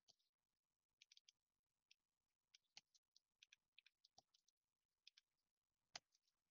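Faint, irregular computer keyboard keystrokes as text is typed, with one sharper click about six seconds in.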